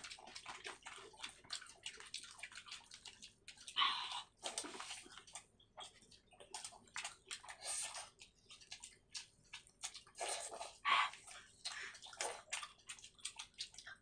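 Wet eating sounds: quick, irregular lip-smacks, slurps and chewing of fish with rice and gravy.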